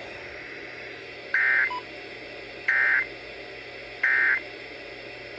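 Emergency Alert System SAME digital data bursts from NOAA Weather Radio: three short, identical buzzy squawks about 1.3 s apart. Coming right after the warning's closing 'repeating' lines, this is the end-of-message code that marks the severe thunderstorm warning broadcast as finished.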